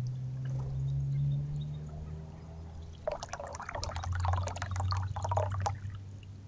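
Small fountain jet trickling and splashing into a shallow terracotta birdbath over a low steady hum. About three seconds in, a dark-eyed junco splashes in the water for a few seconds.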